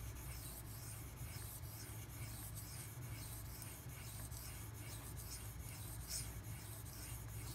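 Steel knife blade being stroked back and forth by hand across a very hard 8000-grit water stone, a soft, repeated scraping rub.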